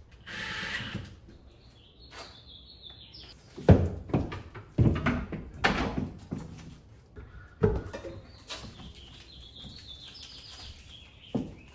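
Hard plastic clunks and knocks as a wall-mounted EV charger unit is handled and hung on its mounting bracket, loudest in a cluster of sharp knocks in the middle, after a brief noisy burst near the start.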